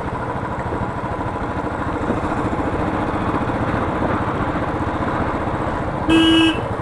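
Royal Enfield Classic 350 BS6's single-cylinder engine running steadily while riding, with road and wind noise. A horn blares once for about half a second near the end.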